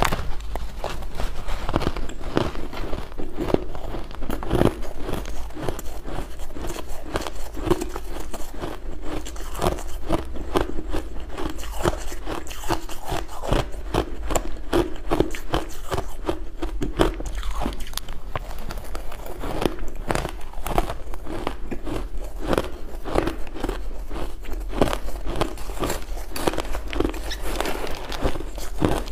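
Mouthfuls of crunchy crushed ice being bitten and chewed close to the microphone: dense, irregular crunching that keeps up without a break.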